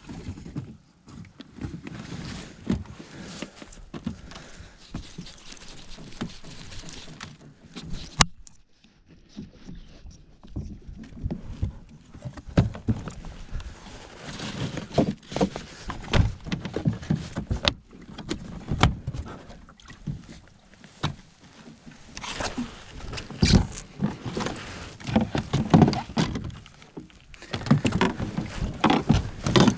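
Handling noise on a Hobie plastic fishing kayak as it is launched and moved on the water: irregular knocks and thunks against the hull, with one sharp click about 8 seconds in and a busier run of knocks near the end.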